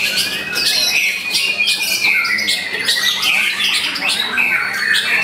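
White-rumped shama (murai batu) singing a continuous, fast-changing stream of whistles, glides and harsh chattering notes.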